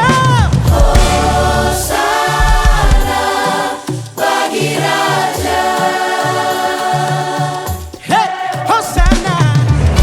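Gospel worship music: a choir singing in harmony with a full band, held chords over a steady bass line, the music dipping briefly twice between phrases.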